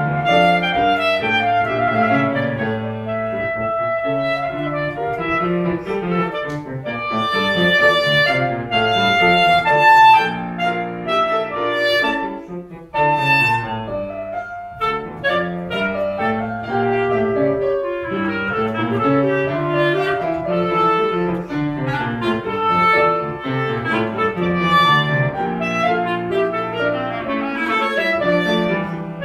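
Clarinet playing a melody over piano accompaniment, the piano running repeated rising and falling figures beneath it.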